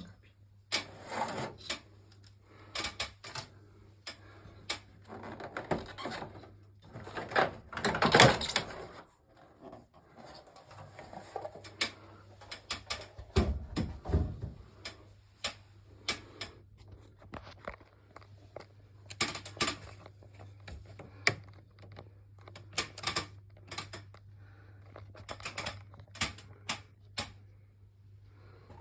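Irregular clicks, taps and knocks of hard parts being handled, with a longer, louder scraping or rustling stretch about eight seconds in, over a steady low hum.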